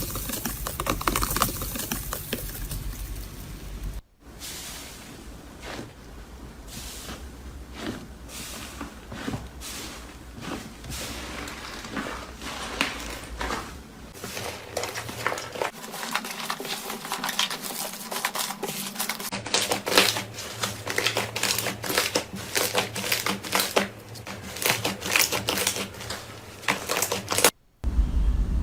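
Slime being squeezed and poked: a dense run of sticky clicks and crackles. It breaks off briefly about four seconds in and again near the end, and the clicks come thicker in the second half.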